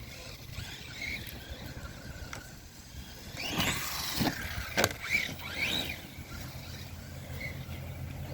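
Redcat Shredder RC monster truck's electric motor whining as the throttle is blipped, its pitch rising and falling several times around the middle, over a steady low hum.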